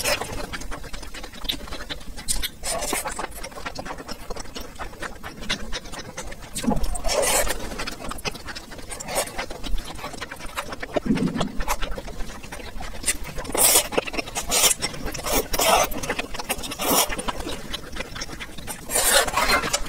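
Close-miked eating of chewy tripe and fried rice noodles: steady wet chewing full of small mouth clicks and lip smacks, broken by several louder slurps of noodles, most of them in the second half.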